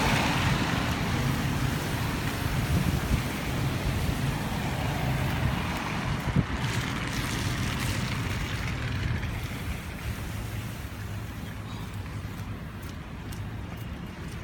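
A motor vehicle passing and moving away: a low engine hum under a broad rushing noise that is loudest at the start and fades over the following several seconds.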